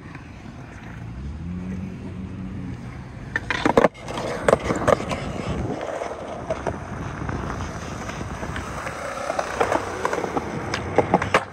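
Skateboard wheels rolling on concrete, then a few loud clacks about four seconds in as the board is popped off the nose for a nollie big spin and landed. The wheels roll on afterwards with a few lighter clicks.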